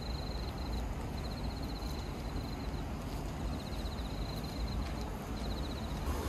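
Insects chirping in short, rapid pulsed trills that repeat every second or so, over a steady low background rumble.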